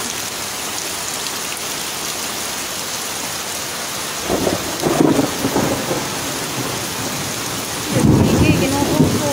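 Heavy typhoon rain hissing steadily, with two loud low rumbles, the first about four seconds in and the second near the end.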